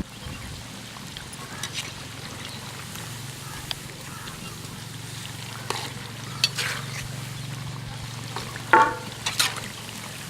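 Chicken pakora frying in hot oil: a steady low hum under faint sizzling, with scattered light crackles and a brief higher-pitched sound near the end.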